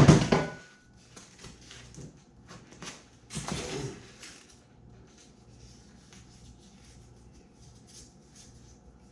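Handling noises from working foam scrap pieces at the bench: a sharp knock at the start, a few small clicks, and a longer scraping rustle about three and a half seconds in, then only a low room hum.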